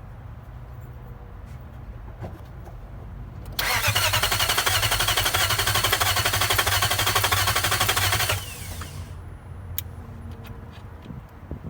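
Nissan VK45DE V8 cranking on the starter for about five seconds, beginning about three and a half seconds in, with a fast even pulse, then stopping without catching: the engine turns over but won't start. A few light clicks follow.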